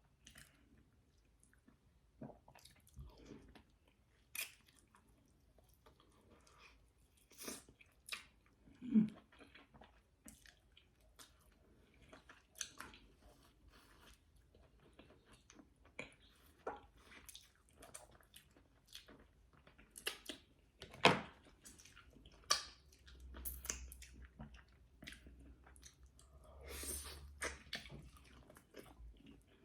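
Close-miked eating sounds: chewing and mouth smacks while eating egusi soup with fufu, with scattered small clicks and taps of utensils or dishes.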